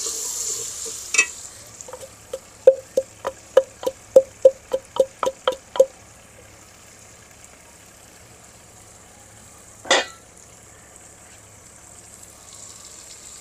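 Wooden pestle pounding garlic and dried coriander in a wooden mortar: a quick even run of about a dozen knocks, nearly four a second. Single knocks come shortly before the run and again later.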